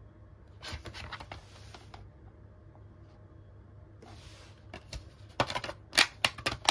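Handling of a DVD disc and its plastic case: soft rubbing and scraping, then a quick run of sharp plastic clicks near the end as the disc is pressed onto the case's centre hub.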